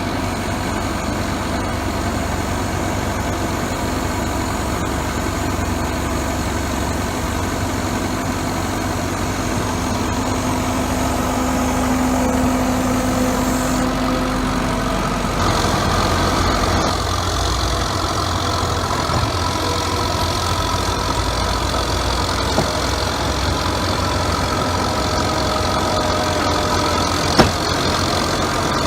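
Diesel engine of a Bomag 814 asphalt paver running steadily at idle. About halfway through the sound changes, with new steady tones coming in, and there is one short knock near the end.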